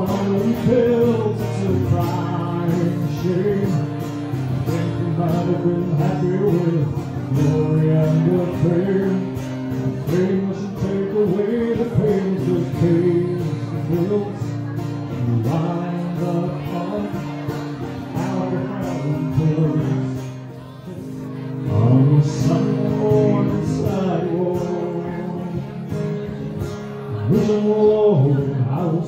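Acoustic guitar strummed, with a man singing a slow country song.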